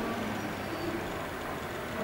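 Airbus A320 jet engines running steadily in the distance, heard as an even rushing noise with a faint low hum.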